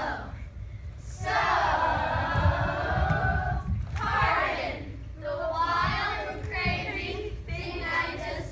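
A group of voices singing, with a long held passage about a second in, over scattered low thuds.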